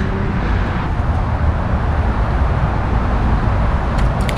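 Steady road traffic noise from the multi-lane highway beside the bike path, with a heavy low rumble. A few light clicks about four seconds in.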